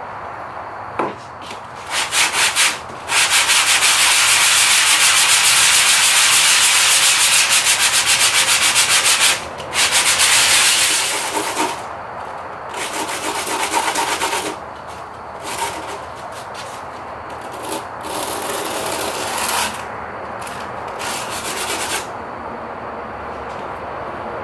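Wooden knife-handle scale, curly birch, rubbed back and forth on a sheet of sandpaper laid flat, in fast rasping strokes: one long loud run, then shorter, quieter spells with pauses. The back of the scale is being roughened so the epoxy will grip.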